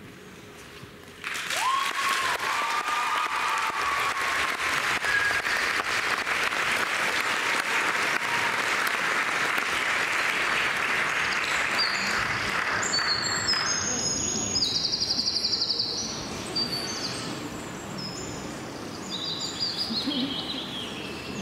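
Applause breaks out suddenly about a second in, holds steady for over ten seconds, then fades. High chirping calls sound over its fading tail.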